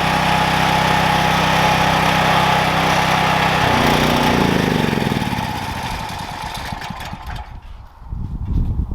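A 5-gallon pancake air compressor runs steadily, then shuts off at about four seconds in, its motor winding down in falling pitch over a couple of seconds: the tank has reached pressure. A few clunks of handling follow near the end.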